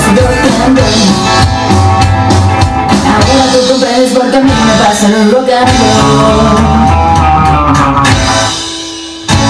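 Recorded Spanish rock'n'roll song with a singer, drums and guitar. It fades out near the end, and another track starts abruptly just as it ends.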